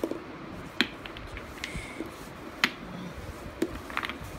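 Toy alphabet blocks knocking and clicking together as a child handles and sorts them: a handful of short, sharp clicks at uneven intervals, the loudest about a second in.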